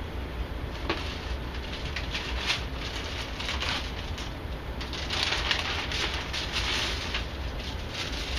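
Wax paper crinkling and rustling as a fresh sheet is handled and cut, in an irregular run of crackles that grows louder in the second half, over a steady low hum.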